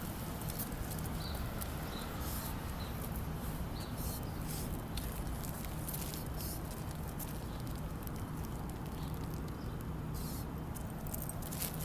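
Light, irregular patter and clicks of a leashed pug and its walker stepping on a concrete sidewalk, over a steady outdoor background hiss and low hum.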